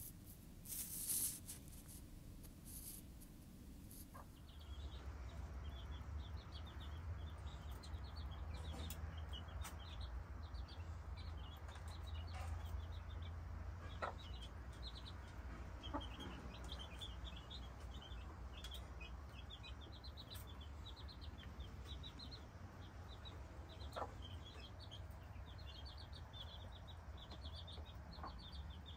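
Domestic chicks peeping: a quick, continuous stream of short high peeps that starts about five seconds in, over a low steady rumble.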